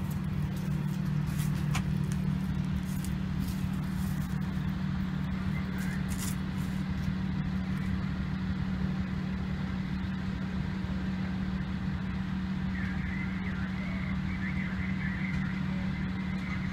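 Steady low mechanical drone from a running machine, with a few faint clicks in the first seconds.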